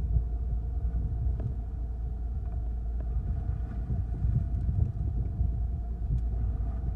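Fishing boat's engine running steadily: a low rumble with a steady hum of fixed tones above it.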